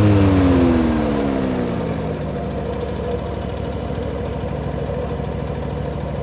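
An engine winding down from higher revs over about two seconds, then running steadily at a lower speed.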